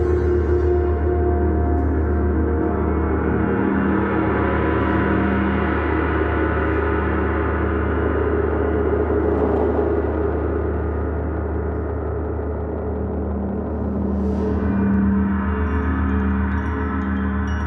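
Gong played in a gong bath, ringing in a continuous wash of many overlapping sustained tones that swells in the middle and again near the end.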